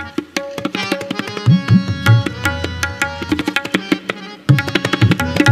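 Tabla solo: quick strokes on the small right-hand drum ring out with a clear pitch, while the large left-hand bass drum gives deep strokes that bend in pitch. The playing grows louder and denser about four and a half seconds in.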